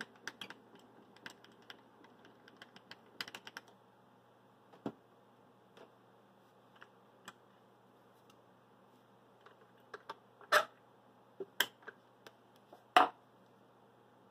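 Small milling machine slotting the soft metal frame of a model locomotive: a faint steady motor hum under scattered sharp clicks from the cut, with three louder clicks in the last few seconds.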